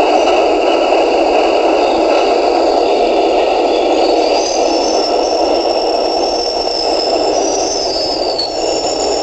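Subway train at a station platform: a steady rattling rumble with faint steady whines, and a thin high squeal coming in about four seconds in that slides down and fades near the end.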